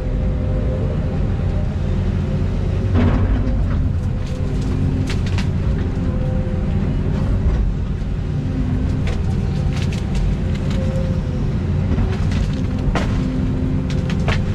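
Volvo EC220E excavator's diesel engine running under load, its hydraulics whining in short rising and falling tones, with scattered sharp cracks and knocks.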